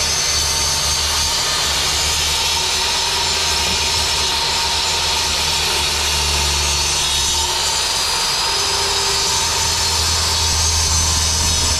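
Craftsman sliding compound miter saw running and cutting through a wooden board, a steady power-saw noise.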